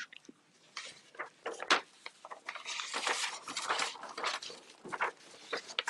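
Mouth sounds of someone eating a long french fry: scattered wet clicks and smacks from biting and chewing, with a denser stretch of chewing about two to four seconds in.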